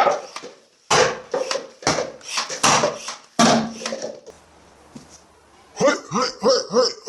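A series of sharp hard knocks and clacks, about seven in the first three and a half seconds, then a person chuckling in quick bursts near the end.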